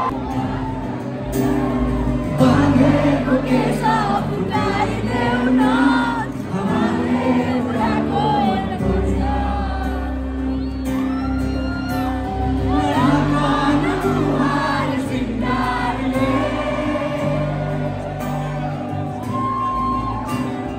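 Live band playing a Nepali love song on acoustic guitar, electric guitar, keys and drums, with a lead vocal and the crowd singing along, heard from among the audience.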